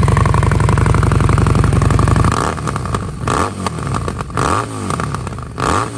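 Harley-Davidson Street Rod 750's V-twin engine through a Vance & Hines Competition Series slip-on exhaust, idling steadily and then revved in a few quick throttle blips from about two seconds in, the pitch rising and falling with each blip.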